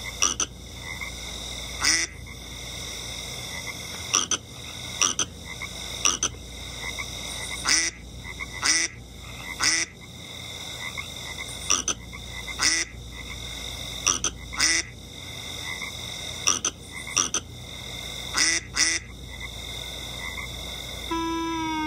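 Frog croaking over and over, short croaks roughly once a second at uneven spacing, played back from a television with a steady high whine behind them. A brief musical note with a falling pitch comes in near the end.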